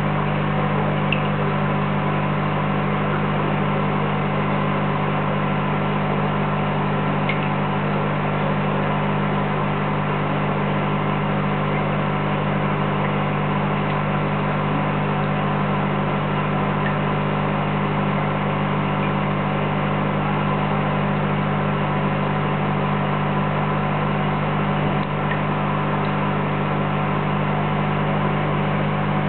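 Steady low hum of an aquarium air pump driving sponge filters, unchanging throughout, with a few faint clicks.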